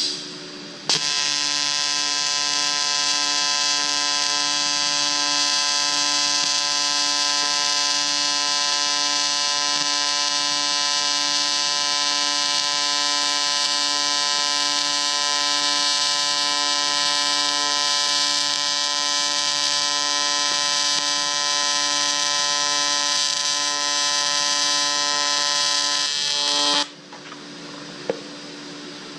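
TIG welding arc buzzing steadily for about 26 seconds, starting about a second in and cutting off suddenly near the end, with a short burst just before it starts. The arc runs on an AC frequency setting the welder has just changed, over a surface that has not been cleaned.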